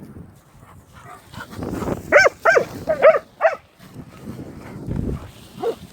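Leonberger dog giving short, high yelping barks: four in quick succession a couple of seconds in, and another just at the end, with rough low noise between them.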